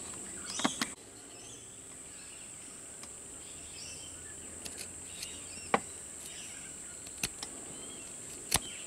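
Sharp wood chisel paring the end of a small wooden casting pattern by hand: a few short, sharp snicks as it cuts off thin slivers, spaced a second or more apart, over a steady background hiss.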